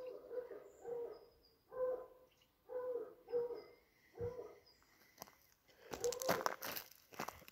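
An animal calling repeatedly, short pitched calls about once a second. About six seconds in, crunching through dry fallen leaves begins.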